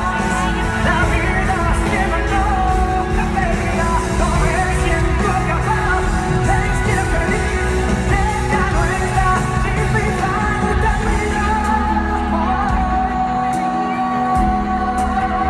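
Live pop-rock band playing on a concert stage, with a male lead voice singing over drums, bass and keyboards, heard from within the audience. The bass drops out briefly near the end.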